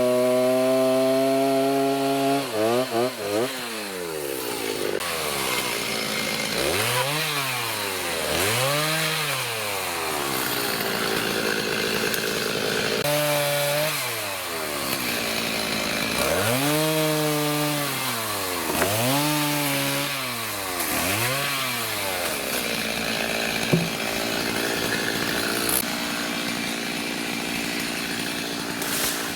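Chainsaw running loud at high revs, its pitch swinging up and down again and again as the throttle is worked and the chain bites into the wood, then holding steadier under load while cutting up fallen trees.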